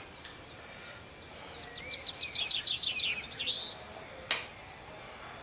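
Bird calling: a run of quick, high chirps that speed up into a rapid chattering series for about a second and a half, then stop. A single sharp click follows a little later.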